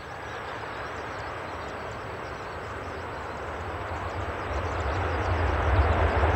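Jet airliner engine noise swelling steadily louder as an aircraft comes in on final approach, with a deep rumble building in the second half.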